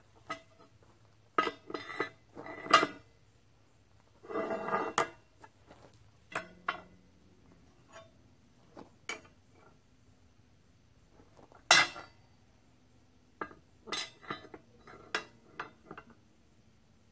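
Steel parts clanking and clinking against a steel welding table: irregular sharp knocks and short clusters of clatter, with a longer scraping rattle about four seconds in.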